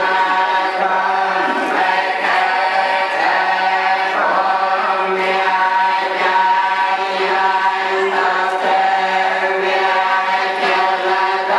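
Cambodian Theravada Buddhist monks chanting a litany together, many voices held in a steady, droning monotone on one pitch.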